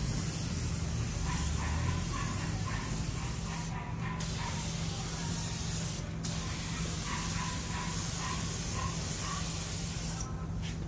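Gravity-feed paint spray gun hissing steadily as it sprays paint onto a truck's sheet-metal body, with two brief breaks as the trigger is let off and dropping away near the end.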